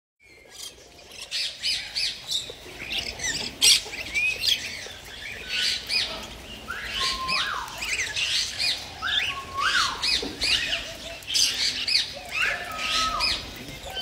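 A mixed aviary flock of small parrots, mostly budgerigars and cockatiels, chattering, chirping and squawking together, with a loud sharp squawk about four seconds in. A whistled call that holds one note, then sweeps up and back down, repeats every two to three seconds in the second half.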